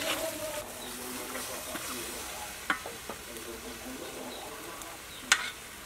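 Sliced beef sizzling in a wok as a wooden spatula stirs it, with a few sharp knocks of the spatula against the wok, the loudest a little after five seconds in.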